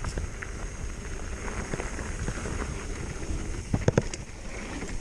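Mountain bike on 27.5 x 2.8 in plus tires rolling fast down a dirt trail, a steady low rumble of tires and wind. A few sharp clattering knocks from the bike come close together about four seconds in.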